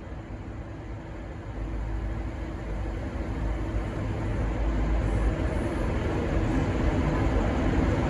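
V/Line N class diesel-electric locomotive's EMD diesel engine running with a deep rumble that grows steadily louder as the train gets under way.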